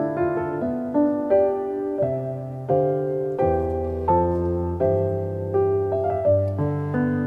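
Background piano music: single notes and chords struck about two a second over held low bass notes.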